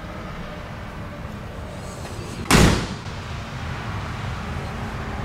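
The door of a 1955 Mercury Montclair being shut: one loud slam about two and a half seconds in.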